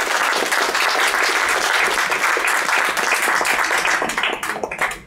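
A small audience applauding, fading out near the end into a few scattered last claps.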